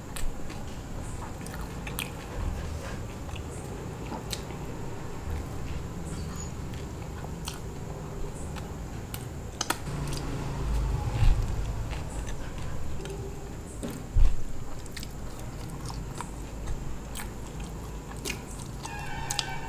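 Close-up biting and chewing of a soft-bun aloo tikki burger, with wet mouth sounds and scattered small clicks. There are a few louder bites, about ten and fourteen seconds in. Near the end a French fry goes in.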